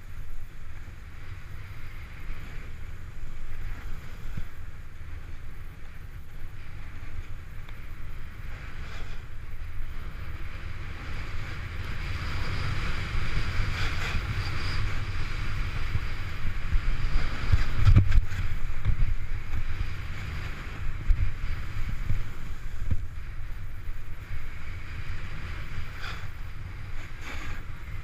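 Snowboard sliding and carving over snow: a steady scraping hiss that swells around the middle of the run, over a low wind rumble on the GoPro's microphone. A thump about eighteen seconds in.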